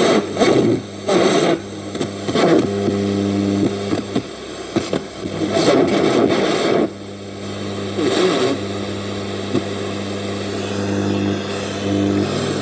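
Radio section of a Panasonic T560 radio cassette player being tuned: irregular swells of static and snatches of broadcast come and go over a steady low hum.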